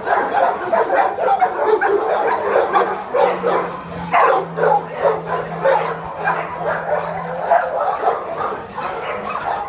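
Many kennelled dogs barking over one another in a continuous din, with no pause.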